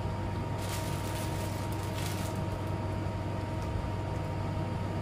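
Room air conditioner running with a steady hum and a faint constant whine, and two brief soft rustles of a plastic bag, about a second in and again about two seconds in.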